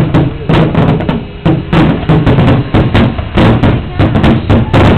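Aerial fireworks shells exploding in the finale barrage, a rapid, irregular string of booms, several a second, each followed by a short rumbling echo.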